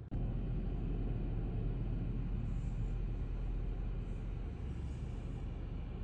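Automatic car wash tunnel running, a steady low rumble heard through the glass wall, starting abruptly at a cut.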